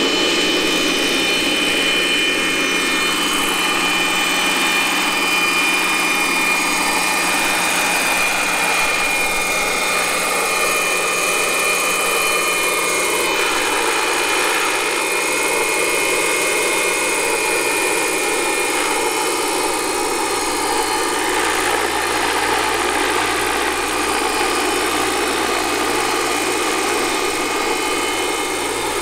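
Scale RC Lama helicopter's sound module playing a steady, high turbine whine over the rush of the spinning main rotor as the model lifts a slung hay bale and flies. The model is electrically driven by a Kontronik Pyro 750 motor, so the turbine whine is a simulated sound.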